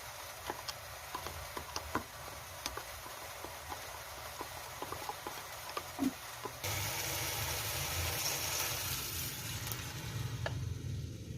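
Food frying in a pan with oil: scattered crackling pops over a low sizzle, then a sudden jump to a louder, steady sizzle a bit past halfway.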